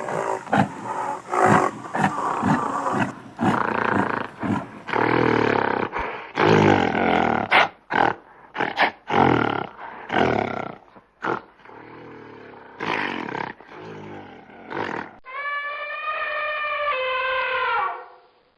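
Animal call sound effects for a cartoon stampede: a long run of short, rough animal calls one after another. Near the end comes a single long pitched, horn-like call of about three seconds, which drops in pitch before it stops.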